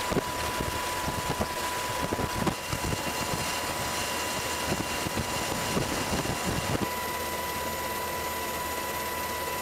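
Steady drone of an aircraft's engines with a constant whine, heard from on board. Irregular low buffeting rides over it and eases about seven seconds in.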